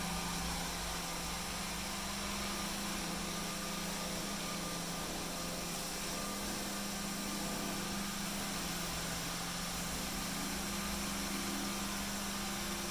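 Roomba S9+ robot vacuum running, a steady motor hum with an even hiss of suction.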